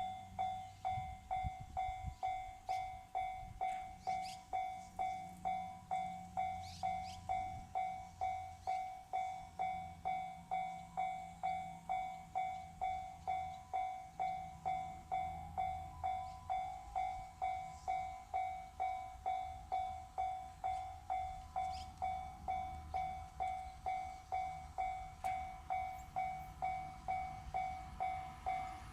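Japanese level crossing alarm dinging steadily, a little under two dings a second, while a freight train hauled by an EF64 electric locomotive rumbles past.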